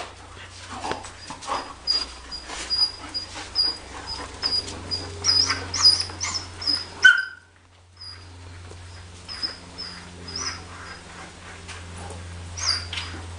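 Dog whining in short, high-pitched squeals, repeated again and again while it heels. The sound cuts out for under a second about halfway through.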